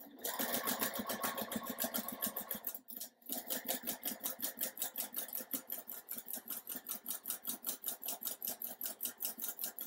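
Juki sewing machine stitching a quarter-inch seam through two fabric squares: a rapid, even run of needle strokes, about eight a second, with a brief pause about three seconds in.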